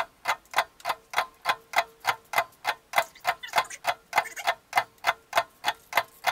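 Clock ticking sound effect: sharp, perfectly even ticks, about three a second, over a faint steady tone.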